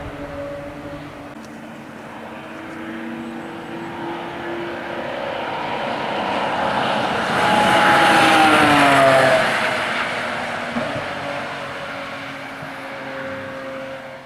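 Porsche 997 GT3 Cup race car's flat-six engine in a fly-by. The engine note grows louder as the car approaches, is loudest about eight seconds in, drops in pitch as it passes, then fades as the car pulls away.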